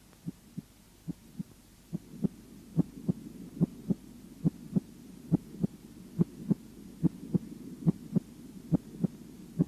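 Human heart sounds heard through a stethoscope: the first and second heart sounds beating in evenly spaced pairs, about seventy beats a minute, with a faint steady low hum behind them from about two seconds in.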